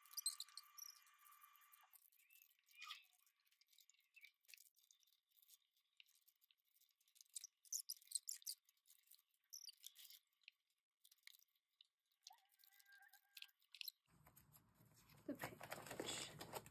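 Faint, scattered crinkles and clicks of plastic binder sleeves and photocards being handled, with a louder rustle near the end.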